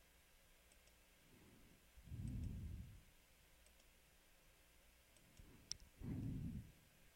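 Faint computer mouse clicks, scattered and sparse, with one sharper click a little past the middle. Two soft, low, muffled swells of sound are louder than the clicks, one about two seconds in and one about six seconds in.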